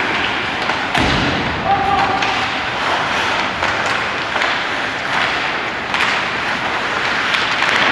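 Ice hockey play in an arena: a steady wash of skates on ice and rink noise with scattered sharp clacks of sticks and puck, and a heavy thud about a second in.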